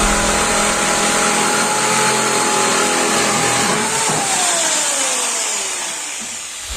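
Benchtop drill press's electric motor running at speed with a steady whine, then switched off about four seconds in and winding down, its pitch falling steadily as it slows.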